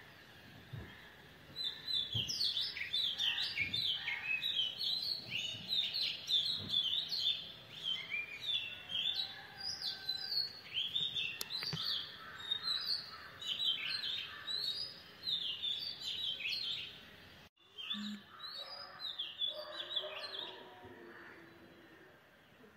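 Birds chirping: a dense, continuous run of short, quick, falling chirps that starts a second or two in and drops out for an instant about 17 seconds in.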